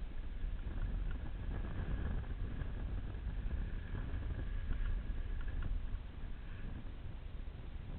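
Föhn wind buffeting the microphone: a rough, gusting low rumble. A faint thin high tone runs beneath it and stops about six seconds in.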